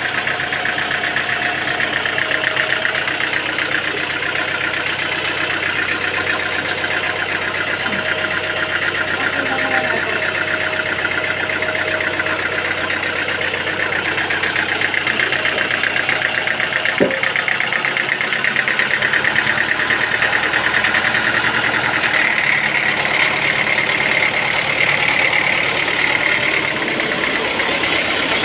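Sawmill engine running steadily, with a single sharp click about 17 seconds in. The sound turns slightly brighter about 22 seconds in.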